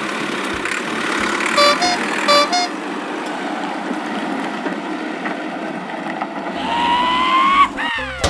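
Cartoon vehicle sound effects: a steady engine rumble with two short two-note horn honks about two seconds in, then a rising whistle-like tone near the end.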